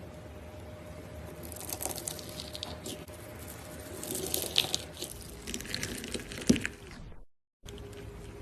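Slime being squeezed and pressed by hand, making irregular crackles and small pops, with one sharp pop about six and a half seconds in. The sound cuts out briefly near the end, then resumes.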